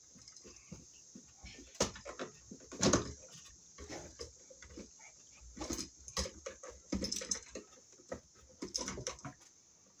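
Handling noise from working electrical cable into a plastic switch box: irregular rustles, clicks and knocks, the loudest about two and three seconds in.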